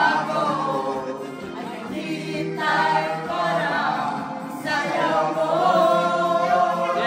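Several voices singing together over music, in about three drawn-out phrases.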